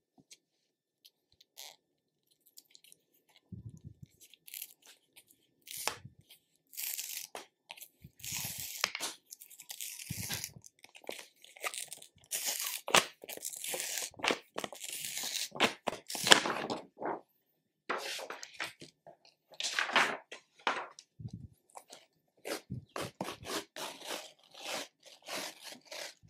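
Paper label wrapping being torn and pulled off a rolled yoga mat, crinkling and rustling in irregular bursts with a few dull handling thuds.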